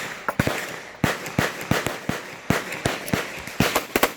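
Gunfire on a shooting range: a string of about fifteen sharp, irregularly spaced shots, some louder than others, as from more than one firearm.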